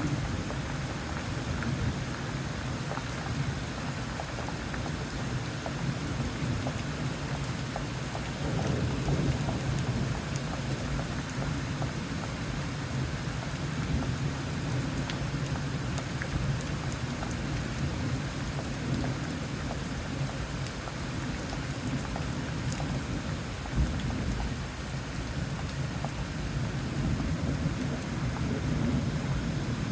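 Thunderstorm: steady rain with rolling thunder. A low rumble swells about eight seconds in, a sudden heavy thump comes about two-thirds of the way through, and another rumble builds near the end.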